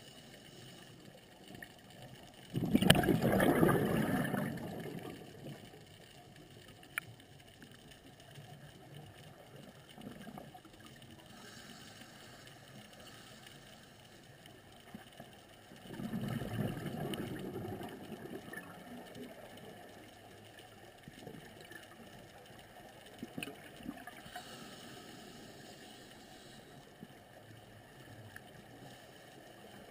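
Scuba diver breathing through a regulator underwater: a loud gush of exhaled bubbles about two and a half seconds in and again around sixteen seconds, each fading over a couple of seconds, with fainter inhalation hisses between.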